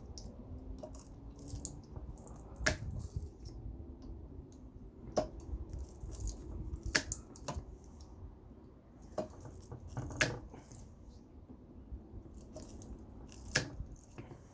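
Wire-cutter pliers cutting and pulling out copper: about six sharp snaps or clicks a second or more apart, with lighter metal scraping and rattling between them.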